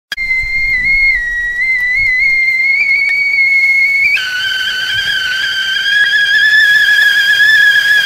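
Whistling tea kettle at the boil, giving a steady high whistle that creeps slightly upward. About four seconds in it jumps abruptly to a lower, stronger pitch, with the hiss of steam rising behind it.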